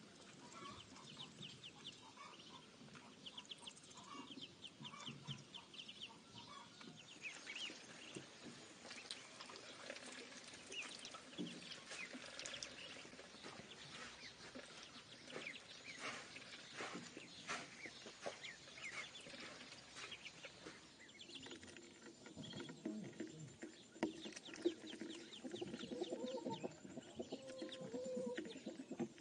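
A brood of ducklings peeping, many short high calls overlapping in quick succession, with some lower calls near the end.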